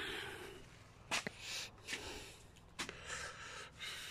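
A person breathing close to the microphone, with a few light knocks, about one and two-thirds of the way in, from the phone being handled.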